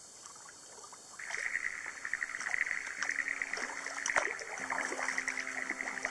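Kayak paddle strokes dipping and splashing in calm water, with drips running off the blades. About a second in, a steady high buzz and low held tones start up beneath them.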